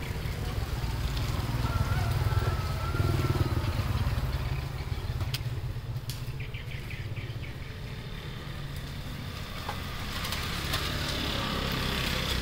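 Low steady rumble of a motor vehicle engine running in the background, a little louder in the first few seconds. A brief run of faint high chirps about six seconds in.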